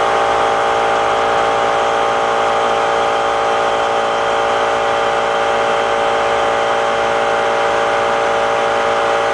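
Waste-vegetable-oil-fired boiler's burner running steadily: a constant hum over an even rushing noise.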